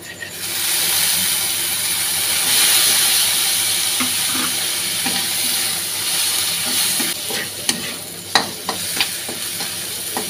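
Chopped tomatoes sizzling in hot oil in a wok (kadai) with fried onion, garlic and ginger as they are dropped in and stirred with a spatula. The sizzle starts about half a second in and eases after about seven seconds, then the spatula clacks against the pan a few times near the end.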